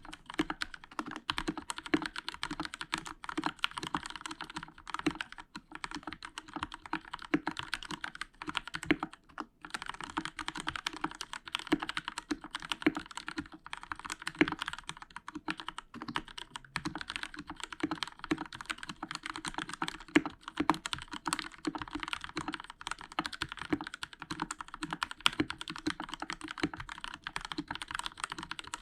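Continuous fast typing on a Royal Kludge RK61 mechanical keyboard with linear Outemu Red switches, a dense run of keystroke clacks and key bottoming-out, with a few brief pauses. The case has foam under the PCB and the stabilizers are lubed with Krytox 206.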